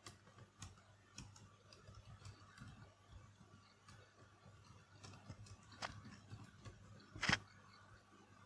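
Faint computer keyboard keystrokes at an irregular pace while text is typed, with two louder clicks in the last third.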